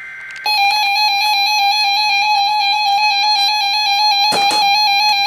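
NOAA Weather Radio warning alarm tone: a quieter pair of data tones ends about half a second in, then one loud, steady alarm tone sounds without a break. A brief crackle cuts across it a little after four seconds in.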